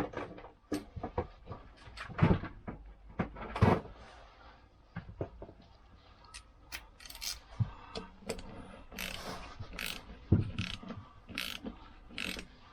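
Socket ratchet clicking in short runs with metal tool clinks and knocks as nuts are done up on a Lambretta scooter engine's drive side.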